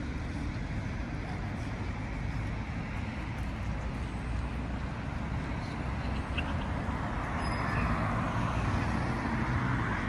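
City street traffic noise at a junction: a steady wash of road noise with low rumble, swelling somewhat louder in the last few seconds as vehicles pass.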